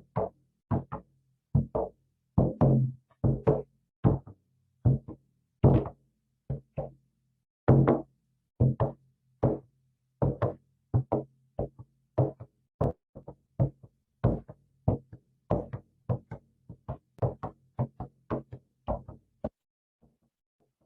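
Hand drum beaten in a steady pulse of about two strokes a second, each stroke ringing with a low hum. The strokes are louder in the first half, grow softer, and stop shortly before the end.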